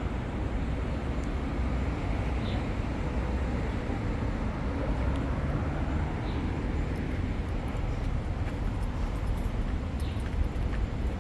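Steady low outdoor rumble, like distant traffic, with a few faint high chirps and light ticks toward the end.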